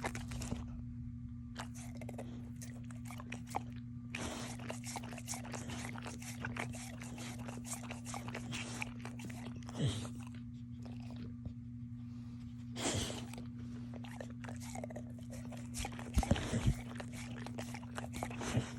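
A dog chewing a crunchy snack, with irregular crunches in bouts, over a steady low electrical hum.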